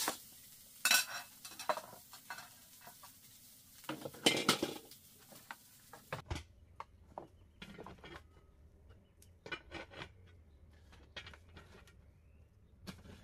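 Dishes and metal utensils clinking and knocking in scattered, irregular strikes, loudest in the first five seconds, then lighter clicks over a faint low hum.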